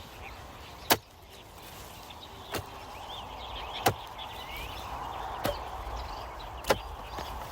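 A hand farm tool chopping, five sharp strikes spaced roughly a second and a half apart, with birds chirping faintly.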